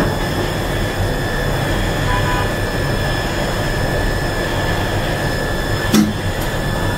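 Steady machinery hum and whir in an elevator machine room, with a few high steady whining tones over it, and a single sharp click about six seconds in.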